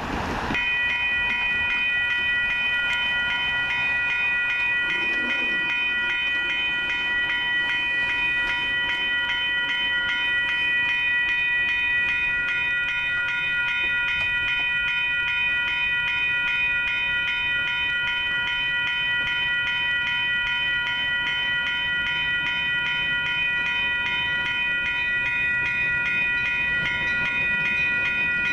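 Railroad grade-crossing warning bell starting abruptly about half a second in and ringing on steadily in fast, even strokes. The crossing has activated for an approaching train.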